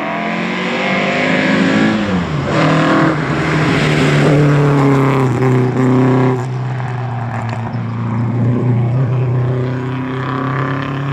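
Rally car engine at high revs, out of sight: its note climbs, drops sharply about two seconds in, climbs again, then runs more steadily through the second half.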